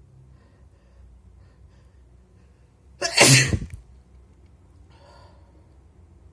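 A single loud, wet human sneeze about three seconds in, lasting under a second.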